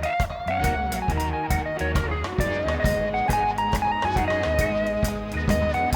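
Background music: electric guitar over a drum kit with a steady beat.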